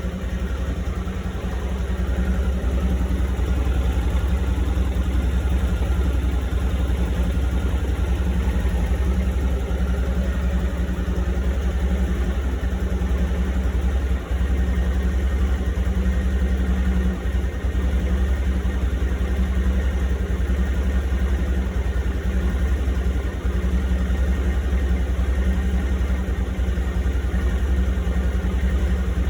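Yamaha XTZ 250 single-cylinder four-stroke engine, fitted with a KMP cylinder kit, idling steadily.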